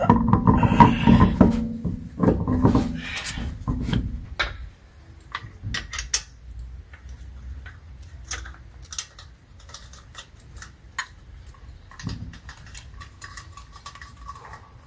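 A car's alloy wheel is worked onto the hub with low knocks and rubbing for the first few seconds. After that, steel lug nuts are spun onto the wheel studs by hand, giving a run of small irregular metallic clicks and clinks.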